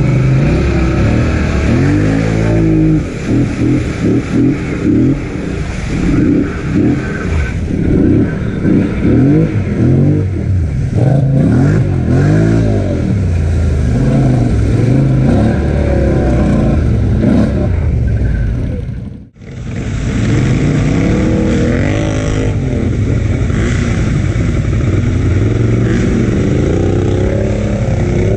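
Polaris Sportsman 1000XP ATV engine revving up and down again and again under load as it churns through deep mud and water. There is a brief break about two-thirds of the way through, then the revving picks up again.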